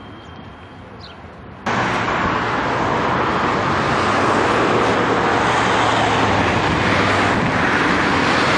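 Loud, steady road traffic noise from cars and buses passing on a busy city street, with a low engine hum underneath. It cuts in abruptly about two seconds in, after a quieter start.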